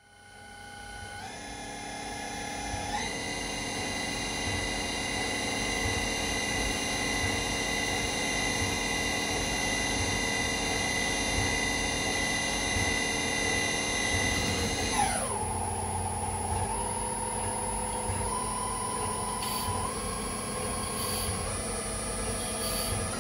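CNC milling machine spindle whining as it turns nylon stock held in a scroll chuck while a fixed tool peck-faces it, fading in at the start. The pitch steps up every second or two as the RPM is raised for each smaller peck diameter, drops sharply about fifteen seconds in, then steps up again.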